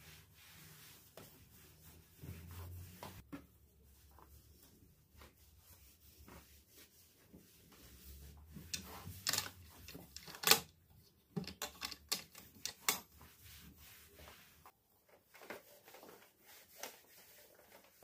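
Scattered light clicks and taps of small objects being handled, busiest in the middle with one sharper tap near the loudest point, over a faint low hum that stops about three-quarters of the way through.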